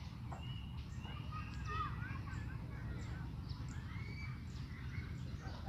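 Several small birds chirping and twittering in short rising and falling notes, over a steady low rumble.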